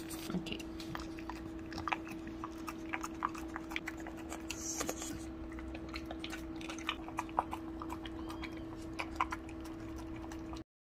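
French bulldog chewing sardine out of a metal bowl: irregular sharp clicks and smacks of eating, over a steady hum.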